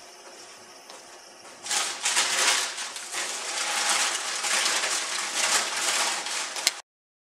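Loud, continuous rustling and crumpling of handled material, starting about two seconds in and cutting off abruptly near the end.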